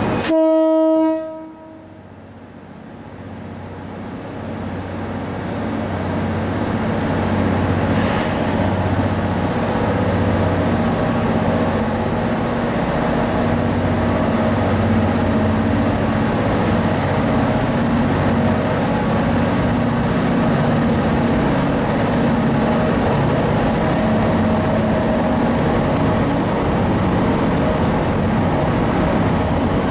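A short horn blast of about a second from the horn fitted to the end coach of the Akebono's 24-series blue sleeper coaches for propelling moves. The coaches then start to move off, and their rolling rumble builds over the next several seconds and runs on steadily.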